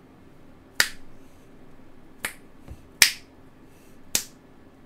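A person snapping their fingers: about four sharp, separate snaps at uneven intervals, roughly a second apart.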